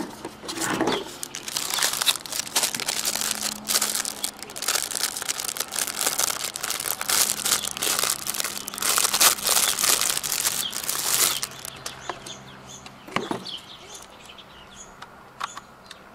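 Packaging being handled: dense crinkling and rustling with sharp crackles for about ten seconds, then settling to a few occasional rustles.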